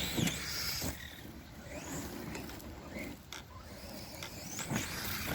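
Redcat Shredder radio-controlled monster truck running across a dirt field at a distance, its electric motor whining up in pitch a few times over tyre and dirt noise.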